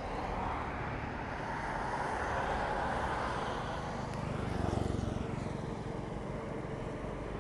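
Steady motor-vehicle rumble of road traffic, swelling briefly about five seconds in.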